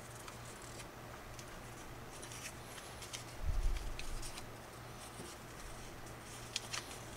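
Faint rustling and small clicks of thin grain-texture paper sheets being handled and compared on a workbench, with one dull thump about three and a half seconds in, over a low steady hum.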